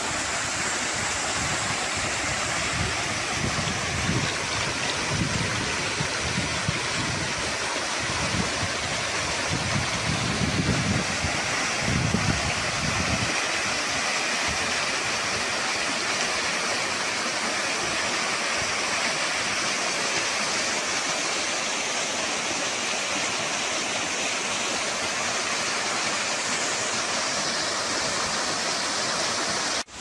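Small natural waterfall falling in a narrow stream down a rock face into a pool: a steady rushing, splashing hiss. For roughly the first thirteen seconds, low rumbling gusts of wind buffet the microphone over it.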